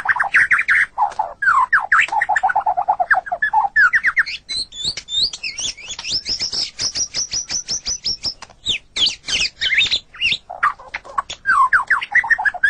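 White-rumped shama singing a fast, varied song: rapid whistled trills and chattering phrases, then a long run of quick, high, rising notes at about seven a second in the middle, before changing back to mixed lower phrases.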